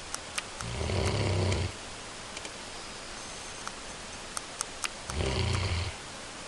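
A sleeping pet snoring: two low snores, each about a second long, about four seconds apart.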